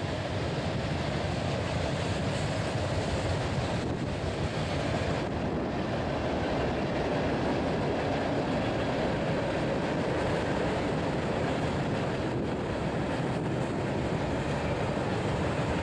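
Freight train of tank cars and boxcars rolling past, a steady rumble of steel wheels on the rails.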